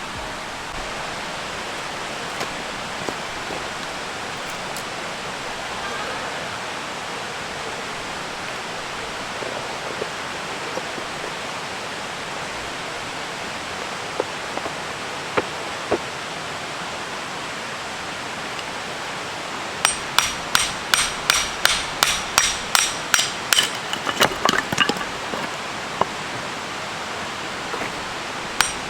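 A peg hammer driving metal tent pegs into the ground: a run of sharp, ringing metallic strikes about two to three a second, starting about two-thirds of the way in, over a steady rushing background.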